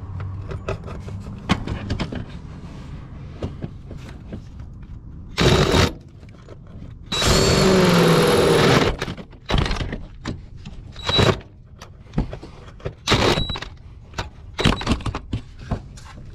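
Cordless drill run in short bursts, with one longer run of about two seconds, drilling through sheet metal; the short bit keeps catching. Clicks and knocks from handling tools come between the bursts.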